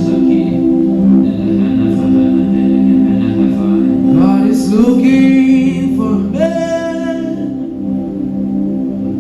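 Worship music: held sustained chords, with a voice singing sliding, wordless lines over them from about four seconds in.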